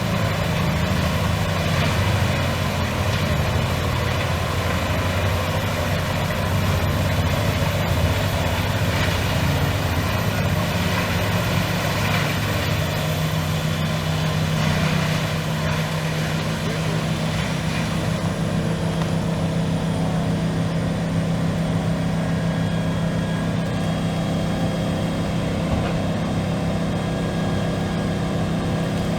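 The diesel engine of an industrial whole-tree shredder runs steadily and loudly, with a harsh grinding noise over its low drone. From about halfway, a faint high whine falls slowly in pitch and the harsh noise eases off.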